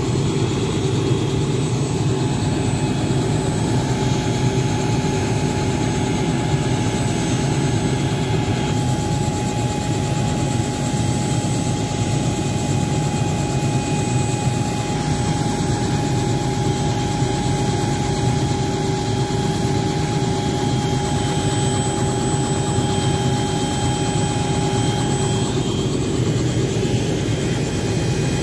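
Robinson R66 helicopter's turbine engine running steadily on the ground: a constant whine over a low rumble.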